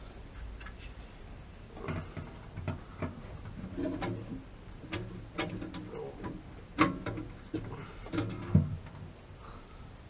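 Irregular clicks and light metal taps from hand-fitting a replacement thermal release device inside a Rheem gas water heater's burner compartment, the sharpest knocks late on.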